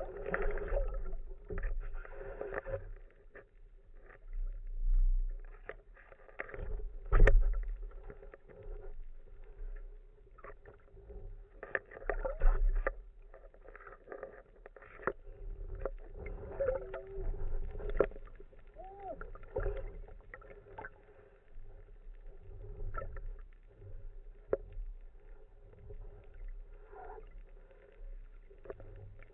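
Muffled underwater sound from a camera on a speargun held near the surface: water swishing and bubbling, with scattered knocks and clicks, the loudest about seven seconds in.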